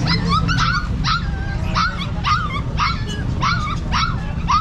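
Puppies yipping and whimpering: short high-pitched cries, two or three a second, over steady low background noise.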